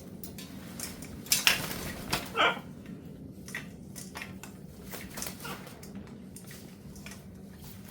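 A parrot's short call, sliding down in pitch, about two seconds in, among scattered clicks and clatter of hard objects, with two louder knocks just before the call.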